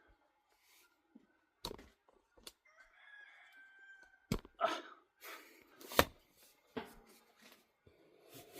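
A rooster crows once, about three seconds in, quieter than several sharp knocks and rustles of handling around it.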